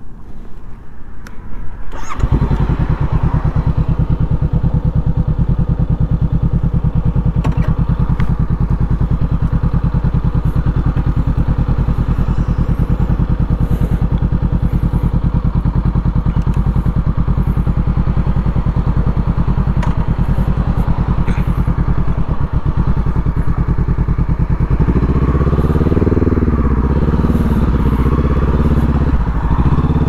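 Honda CB500X's parallel-twin engine, fitted with a Mivv Suono aftermarket exhaust, comes to life about two seconds in and idles steadily. Over the last five seconds it revs up and pulls away, its pitch rising and dropping several times as it goes up through the gears.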